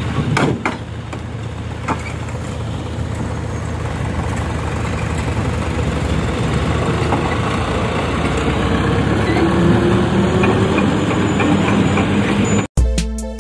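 Mitsubishi Canter dump truck's diesel engine running steadily while its tipper bed dumps a load of soil and lowers, with a few sharp knocks about half a second in and the engine getting gradually louder. It cuts off abruptly to music with a beat just before the end.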